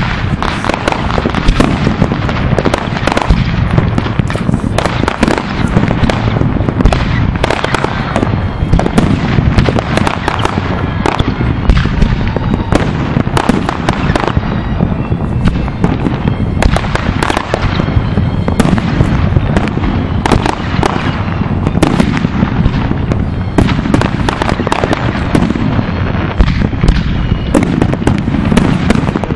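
Fireworks going off in a dense, unbroken barrage: aerial rockets bursting, with many bangs and crackles overlapping.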